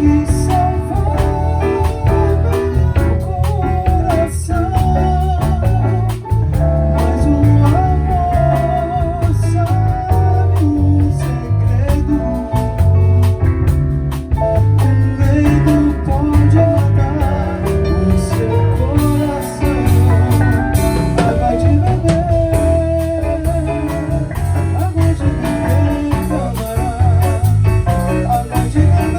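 Live small band playing bossa nova: a sung melody over guitar, five-string electric bass, drum kit and piano, played steadily throughout.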